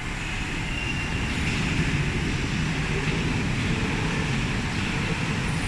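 Steady drone of machining-workshop machinery.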